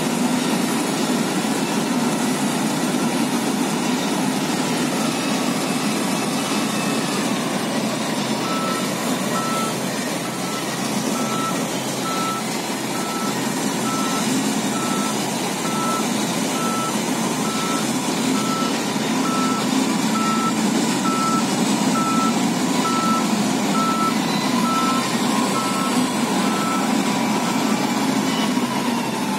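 A heavy vehicle's reversing alarm beeping at an even pace, starting about a third of the way in and stopping shortly before the end, over the steady running of the dump truck's and wheel loader's diesel engines.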